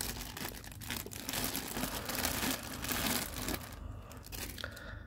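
Clear plastic bag crinkling and rustling as hands pull a resin figure piece out of it, dying down near the end.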